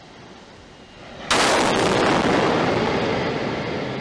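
A faint hiss, then about a second in a sudden loud explosion that goes on as a rumbling blast for about three seconds. It is Super Heavy Booster 7's accidental ignition of a methane-oxygen gas cloud around its Raptor engines during a flow test, heard from a distance.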